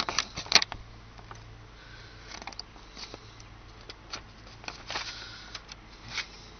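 Printed paper pages rustling and crackling as they are handled and turned, in irregular crackles with a sharp one about half a second in.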